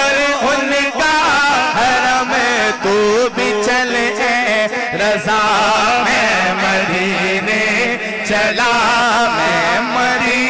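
Men singing an Urdu naat (devotional song in praise of the Prophet) into microphones, the lead voice drawing out long, ornamented, wavering notes over a steady low drone.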